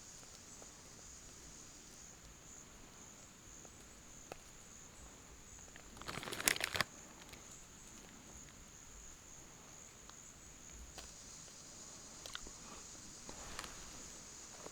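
Faint, steady high-pitched drone of insects in the woods. A brief, louder rustling crunch comes about six and a half seconds in, and a few light taps follow near the end.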